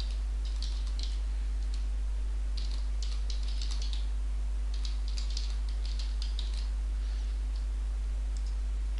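Computer keyboard typing in short runs of keystrokes with pauses between them, over a steady low hum.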